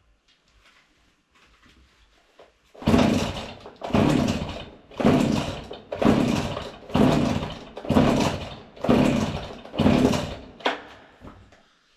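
Husqvarna 40 two-stroke chainsaw being pull-started: eight sharp pulls of the recoil starter, about one a second, each whirring down as the engine turns over without catching.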